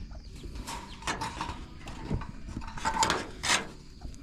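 Homemade latch on a chicken coop door being worked by hand, scraping as it slides and clicking several times.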